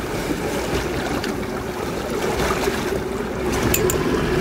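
Wind on the microphone and water noise around a small fishing boat, with a steady low hum underneath. A few faint clicks come near the end.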